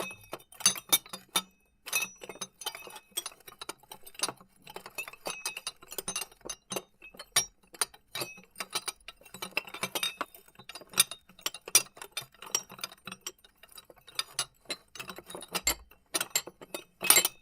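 Glass items rattling and clinking against each other in quick, irregular clinks that keep going, with a louder flurry of clinks near the end.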